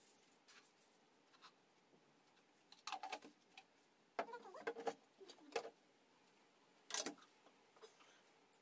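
Steel kitchen utensils clinking and clattering: a kettle lid and steel pots being handled beside a gas stove. Scattered clinks with a brief ringing come about three seconds in and again a second later, and one sharp clank comes near the end.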